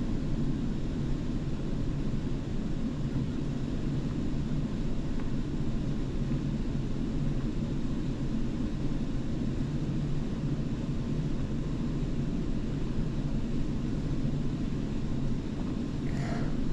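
Steady low hum and rumble of room noise, like an air-conditioning system running, with no distinct swallowing heard. Near the end, a short vocal exhale of disgust.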